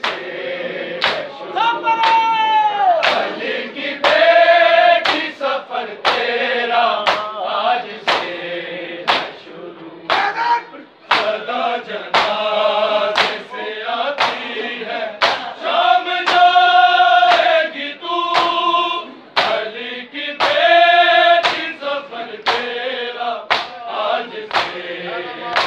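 A group of men chanting a noha lament together over matam: open-handed slaps on bare chests, struck in unison a little more often than once a second.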